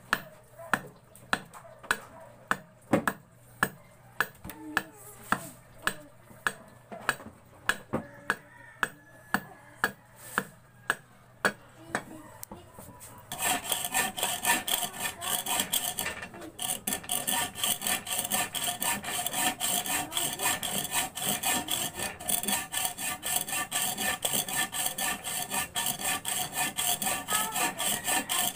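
Sharp chopping blows into a wooden plank, about two a second. About thirteen seconds in they give way to steady, fast strokes of a hand saw cutting through wood.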